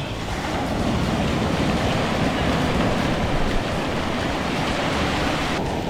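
Surf washing on the beach, with wind rumbling on the microphone.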